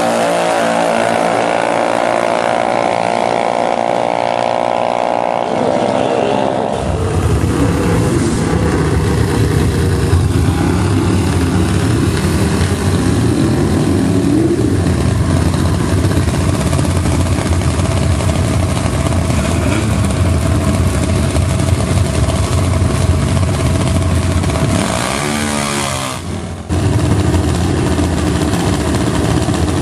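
Junior dragster engines: for about the first seven seconds, engines run at high revs with a steady high pitch. After a cut, a lower, rough-running engine idles close by to the end, broken by a brief dip and pitch sweep near 26 seconds.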